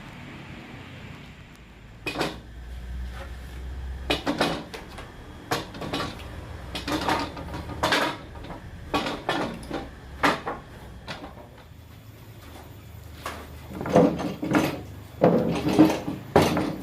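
Irregular metal clanks and clinks, steel parts of a homemade bar clamp being handled and knocked together, with a louder cluster of knocks near the end.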